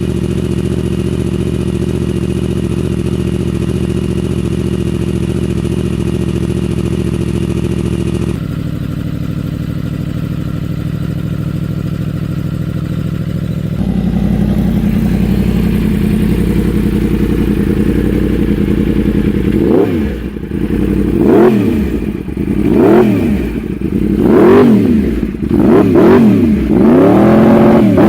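Yamaha R1's crossplane inline-four through an aftermarket exhaust, idling steadily, with the tone changing abruptly twice. About two-thirds of the way through, the throttle is blipped repeatedly, the revs rising and falling about seven times in quick succession.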